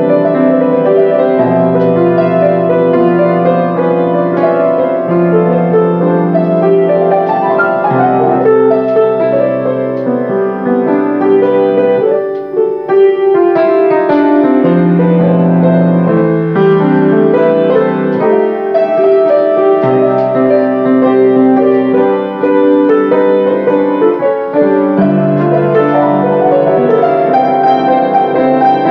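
Grand piano played solo: an original composition, with a melody and held chords over a bass line that changes every couple of seconds.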